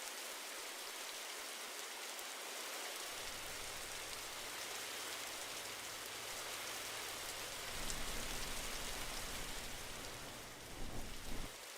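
Air conditioner running: a steady, even hiss of air. A low hum joins about three seconds in and grows louder near eight seconds, with a couple of short bumps near the end.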